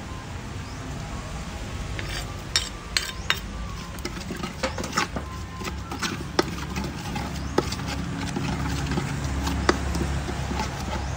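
Metal ladle stirring a large aluminium pot of simmering braising liquid, scraping and clinking irregularly against the pot's sides and bottom, over a low steady rumble.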